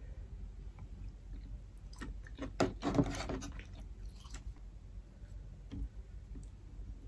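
Close-miked eating of boiled lobster: chewing, and lobster shell crackling as it is cut with kitchen scissors and broken apart by hand. The crackling is loudest in a burst about three seconds in.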